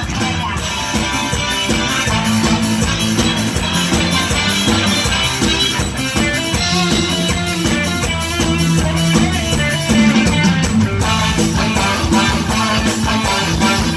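Live band playing an upbeat Isan toei dance tune: plucked guitar over a steady drum beat, with no vocal line.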